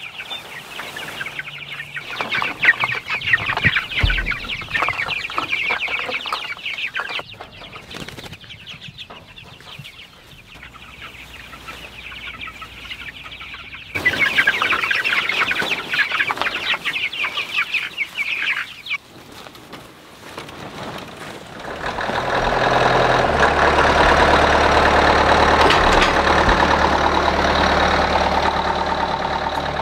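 Young meat chicks peeping busily, then again in a burst as feed is poured into their trough. From about two-thirds of the way through, a Kubota compact tractor's diesel engine runs steadily.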